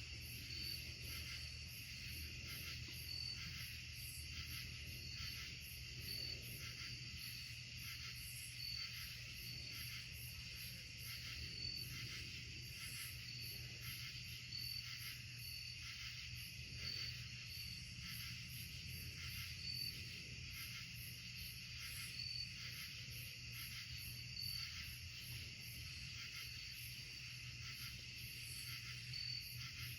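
Night-time chorus of crickets and other insects: a steady high trilling with short high chirps repeating every second or two. A low steady hum runs underneath.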